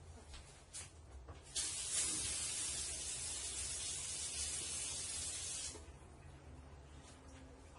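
Hot brazed copper tube being quenched in water, sizzling with a steady hiss that starts about a second and a half in, lasts about four seconds, then stops.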